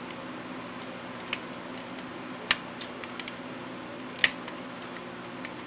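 Sharp plastic clicks and snaps as the retaining tabs of a power window switch housing are pushed out with a small pry tool to free the circuit board, two of them louder about two and a half and four seconds in. A low steady hum runs underneath.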